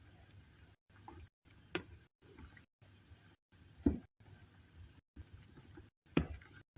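Three short knocks about two seconds apart over faint room noise that keeps cutting out.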